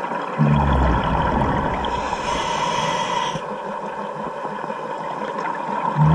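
Scuba diver breathing through a regulator underwater: a low rush of exhaled bubbles about half a second in, an inhaling hiss from about two to three and a half seconds, and another bubble rush at the end.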